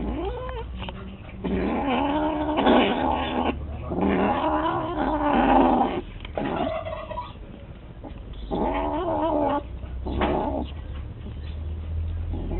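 A cat growling and yowling in long, wavering calls, about five in a row with short gaps. It is a defensive warning from a cat guarding its food.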